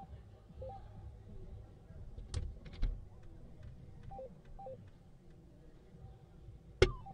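Sharp clicks of soft-tip darts on an electronic dartboard, the loudest near the end as a dart strikes the board, followed by a short falling electronic tone. Short two-note electronic beeps from the dartboard machine sound three times in between.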